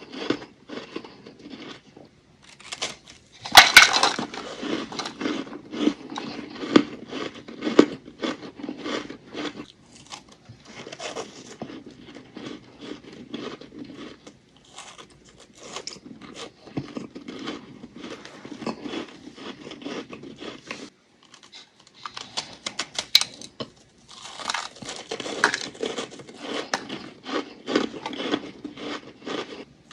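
Close-up crunching of ice being bitten and chewed: thin ice chunks and packed frost cracking in dense runs of crackles with brief pauses, the loudest snap about four seconds in.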